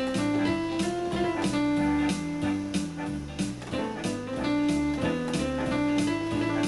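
Electronic keyboard synthesizer playing with an auto-accompaniment style: a steady drum beat, bass line and guitar-like chords under the played notes. The sound is routed through the computer's line input, whose latency the player says makes playing in time impossible.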